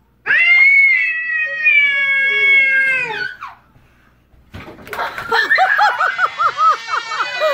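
A cat's long yowl, held for about three seconds and sliding down in pitch at the end. About a second and a half later, high-pitched breathless human laughter starts in quick pulses and keeps going.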